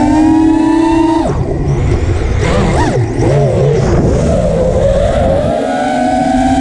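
FPV racing quadcopter's brushless motors and tri-blade props whining at a steady pitch, cut off abruptly about a second in, then rising and falling unevenly for a few seconds as the throttle is worked through a roll, before settling back into a steady whine.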